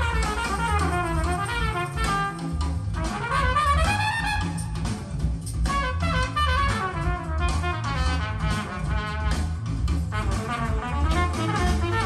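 Jazz with a brass lead over a steady bass line, played back through Monitor Audio Silver 100 6G bookshelf speakers.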